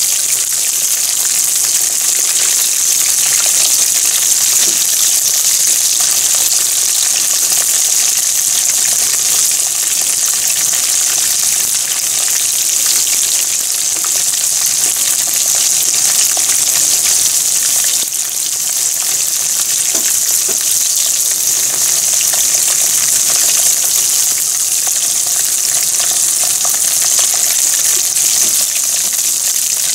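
Pieces of coated food deep-frying in a pan of hot oil: a dense, steady sizzle and crackle of bubbling oil.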